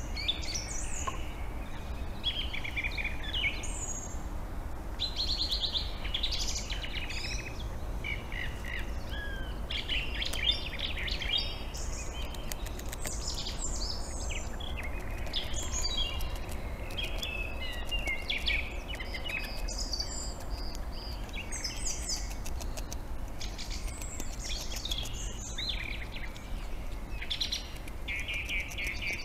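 Several small birds singing and calling at once, a busy chorus of quick chirps and warbled phrases that overlap and never stop, over a steady low rumble.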